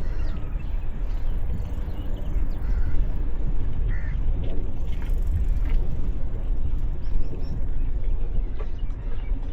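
Steady low wind rumble on an action camera's microphone while cycling, mixed with tyre and road noise.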